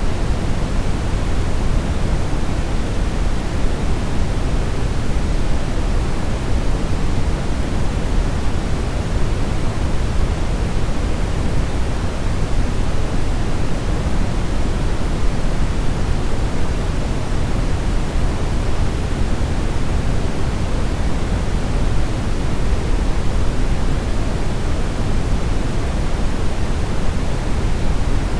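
Brown noise: a steady, even rumbling hiss weighted heavily toward the low end, with no change or events.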